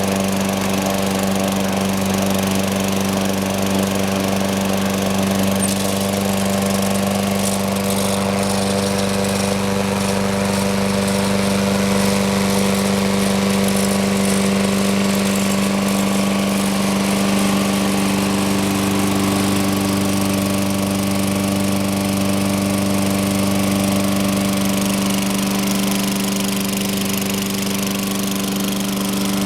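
Lawn-Boy Insight mower's 6.5 hp Tecumseh single-cylinder engine running steadily at a constant speed, with no change in pitch or level.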